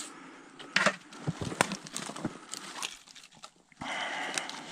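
Twigs snapping and branches scraping as someone pushes through dense, snow-laden spruce, heard as irregular sharp cracks, with a steadier brushing rush near the end.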